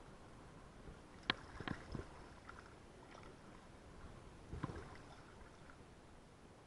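Light splashing and sloshing of shallow river water, with a few sharp clicks and knocks; the loudest comes about a second in, and another cluster comes a little past halfway.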